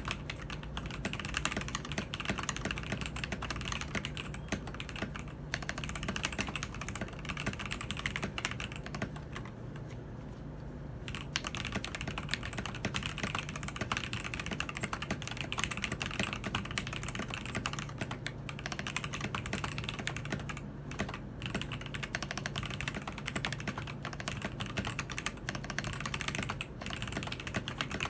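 Fast typing on a Keydous NJ80 mechanical keyboard with TTC Gold Pink linear switches: a dense, even stream of keystroke clacks that eases off briefly about nine seconds in.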